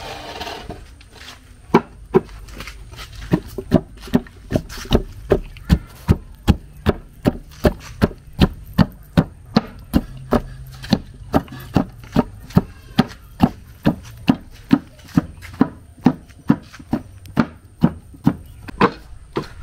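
Wooden pestle pounding boiled palm nuts in a wooden mortar: a steady run of dull thuds, about two to three a second, starting a couple of seconds in. The nuts are being mashed to free the pulp for banga (palm-nut) soup stock.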